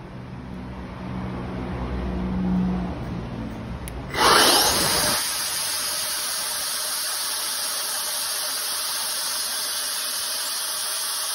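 Electric turbo compressor running on 24 volts: a low hum builds for about four seconds, then the motor spins up with a fast rising whine and runs at full speed as a steady, loud, high-pitched whine and rush of air, blowing about 6 psi of boost.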